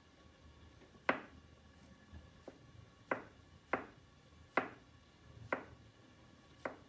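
Kitchen knife slicing button mushrooms on a plastic cutting board: about seven sharp taps of the blade on the board, roughly one a second and unevenly spaced.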